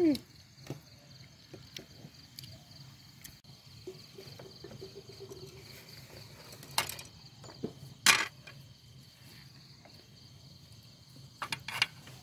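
Night insects chirring steadily at a high pitch, with a few sharp clicks and knocks over them: two louder knocks past the middle and a quick cluster near the end.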